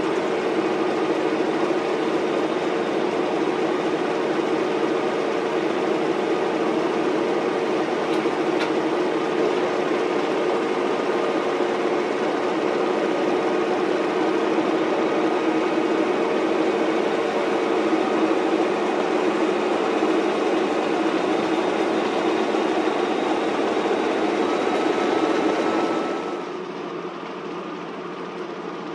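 SM42 diesel shunting locomotive's eight-cylinder diesel engine running steadily, heard close by. Near the end it suddenly drops to a quieter, more distant run.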